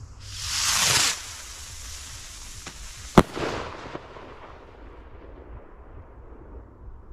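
Vivid Pyrotechnics Hellfires 14g-NEC firework rocket launching with a loud rushing whoosh that falls in pitch and stops about a second in. It bursts with a single sharp bang about three seconds in, followed by a faint fading hiss as its green strobe stars burn.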